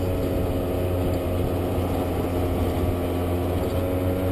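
Scooter engine running steadily at cruising speed, an even drone with steady low tones over the rush of road and wind noise.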